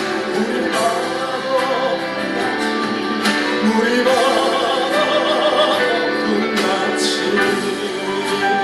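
Contemporary Korean worship song: a singer holding wavering notes over instrumental accompaniment, between sung lines.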